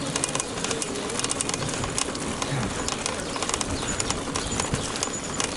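Car suspension making a quick run of irregular clicks, knocks and creaks over a steady background noise.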